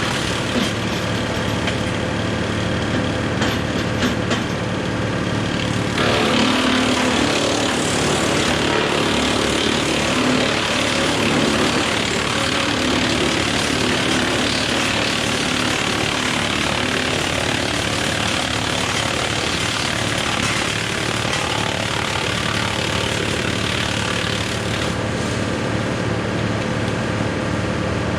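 John Deere 4066R tractor running a Woodmaxx WM8 PTO wood chipper, a steady engine hum. From about six seconds in until near the end the sound grows louder and rougher.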